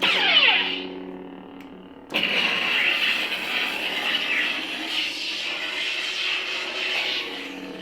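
Kyberphonic's Jecki lightsaber sound font on a saber: a steady blade hum, a swing whoosh at the start, then a sudden clash about two seconds in that runs into a sustained effect lasting about five seconds before it eases off.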